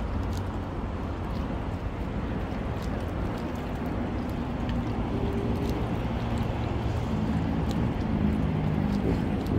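A motor engine's steady hum over a low background rush, growing gradually louder as it comes closer.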